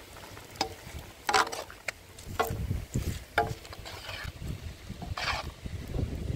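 Irregular knocks and clatters, about one every half second to second, some with a short ring after them, over a low wind rumble on the microphone.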